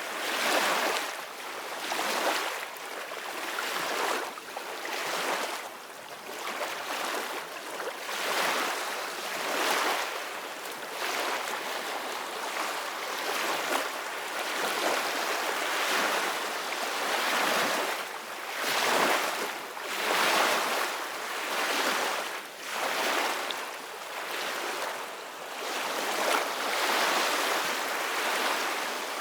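Sea waves washing and splashing, swelling and fading every second or two.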